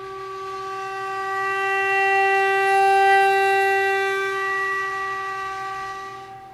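Tang xiao, a bamboo end-blown flute, holding one long steady note that swells and fades. The tone grows brighter and richer in overtones toward the middle and softens again, a smooth change of tone colour made by varying the speed of the breath.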